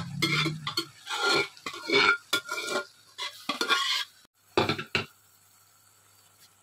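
Perforated metal spatula stirring a thick mutton and cauliflower curry in a metal pot, scraping and knocking against the pot's sides and bottom in a run of irregular strokes that stop about five seconds in.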